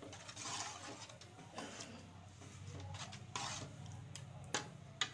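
A steel spoon stirs a thick curry in an aluminium pot, making several wet scraping swishes, then clinks sharply against the pot twice near the end. A low steady hum runs underneath.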